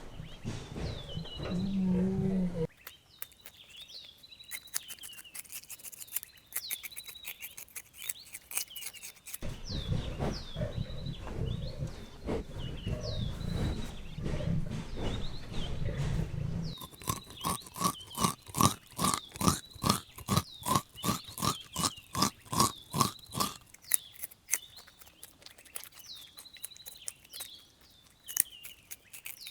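Rabbits chewing and crunching food, with a quick, regular run of crisp bites about halfway through. Small birds chirp in the background, and there is a low rumbling noise in the first half.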